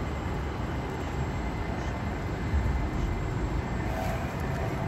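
Steady low rumble of city background noise, with no distinct strikes or calls standing out.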